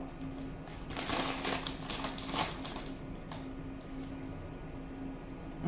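Oreo cookie popcorn being chewed: a run of crisp, irregular crunching clicks about a second in, tapering off by about three seconds.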